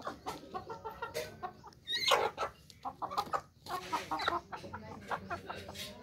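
Young Aseel chickens clucking, several birds calling over each other, with one louder call about two seconds in and a run of quick clucks after it.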